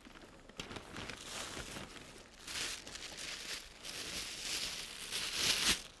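Black plastic bag crinkling and rustling as it is rummaged through by hand, in uneven spells, loudest about two and a half seconds in and again near the end.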